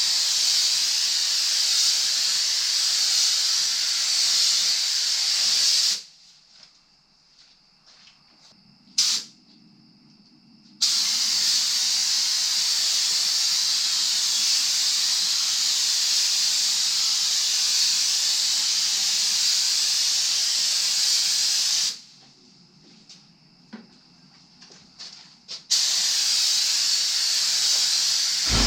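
Paint spray gun hissing as it sprays a colour coat onto a car door, in three long passes with the trigger released between them and one short blip in the first gap.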